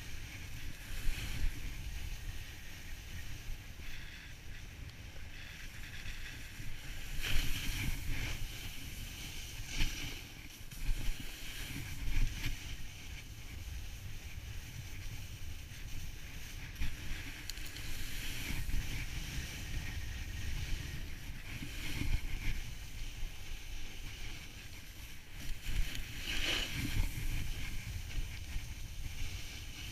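Snowboard sliding down a groomed slope: a steady rushing scrape of the board on packed snow with a low rumble, swelling into short louder surges several times.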